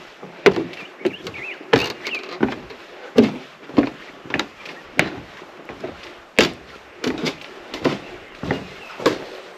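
Footsteps climbing wooden steps and then walking along a wooden deck, an even pace of about three footfalls every two seconds.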